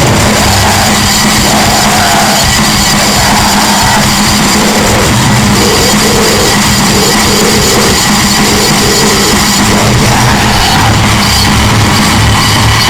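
Loud, heavily distorted rock or metal music with drums, a dense wall of sound at a constant level.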